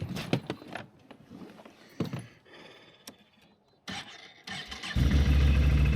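Can-Am ATV being started: a few light handling clicks, a brief crank, then the engine catches about five seconds in and settles into a steady idle.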